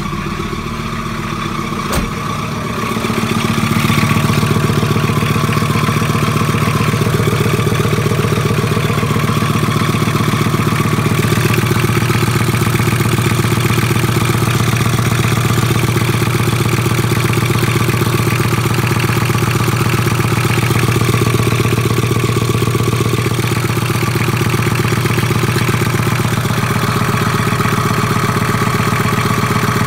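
VW T4's 2.4-litre five-cylinder AAB diesel engine idling steadily. There is a sharp click about two seconds in, and the engine grows louder about three seconds in, then holds steady.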